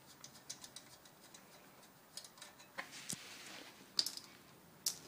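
Small metal parts and tools being handled during a pit bike engine teardown: faint, irregular clicks and ticks, with a few sharper clicks near the end.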